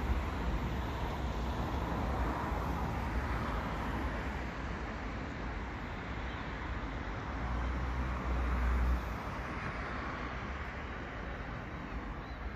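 Steady hum of distant road traffic, with wind rumbling on the microphone that eases off about nine seconds in.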